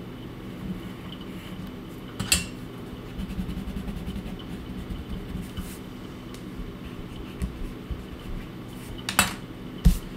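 Pencil and eraser work on a sketchbook page: faint rubbing over a low steady hum, with a sharp tap about two seconds in, a louder one near the end, and two low thumps as the sketchbook is handled and bumps the microphone.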